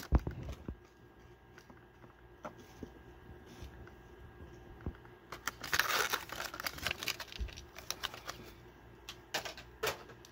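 Clear plastic blister packaging of a carded diecast car crinkling and crackling as it is pried open by hand, with scattered small clicks and a louder burst of crinkling about halfway through.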